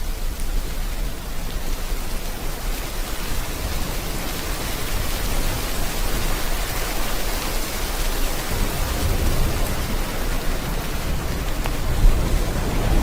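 Steady rain falling, an even hiss, mixed with sea waves whose low surge swells up about two-thirds of the way through and again near the end.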